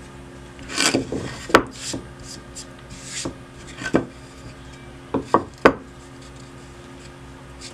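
A thick plywood board handled on a wooden workbench: a series of sharp wooden knocks and short scrapes as it is picked up, turned over and set back down, the last three knocks in quick succession about five and a half seconds in. A faint steady hum sits underneath.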